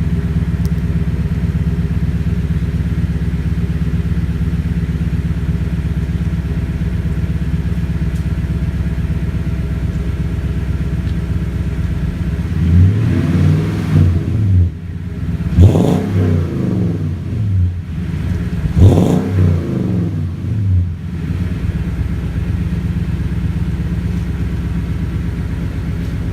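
2012 Toyota Tundra's 5.7-litre V8 breathing through a new Dynomax 17519 Ultra Flo muffler into a single 3-inch tip: a soft, steady idle, then three quick throttle revs about halfway through, each rising and falling in pitch, before it settles back to idle.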